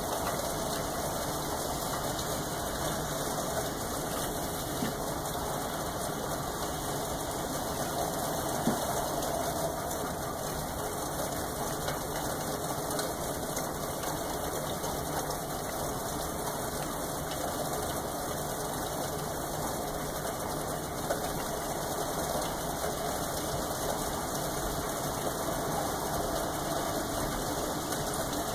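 Steady rain falling, an even hiss with a few faint sharper drop ticks.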